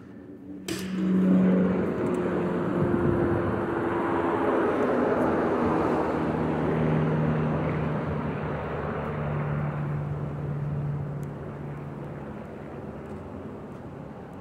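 A door clicks open about a second in, and street traffic comes in: vehicles passing on the road with a low engine hum, easing off near the end.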